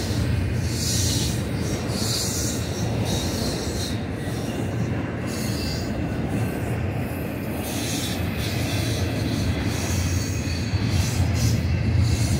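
Double-stack container cars of a freight train rolling past on steel rails: a steady low rumble of wheels on track, with a high hiss that comes and goes as the cars go by.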